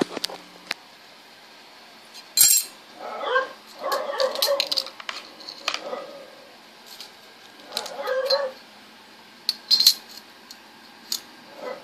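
A pet animal calling several times in short pitched calls, mixed with sharp clicks and knocks; the loudest knock comes about two and a half seconds in.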